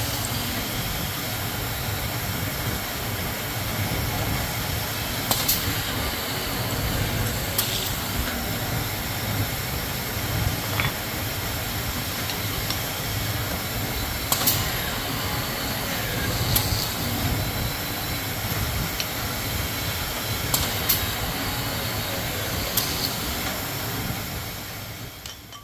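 Self-feeding drill unit's 1/4 HP DC motor running steadily, with a sharp click and a short hiss every few seconds as the pneumatically controlled feed cycles and a 3/16-inch bit drills through thin-wall aluminum tubing.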